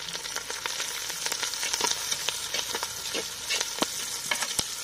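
Sliced onions, curry leaves and green chillies sizzling in hot oil in a clay pot. A metal spatula stirs them, scraping and tapping against the pot in many quick, irregular clicks over the steady hiss.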